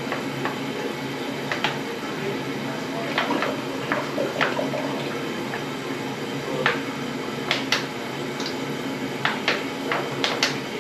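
Plastic detergent bottle squeezed in gloved hands, crackling and clicking irregularly, while a thin stream of dish soap trickles into the toilet-bowl water, over a steady background hum.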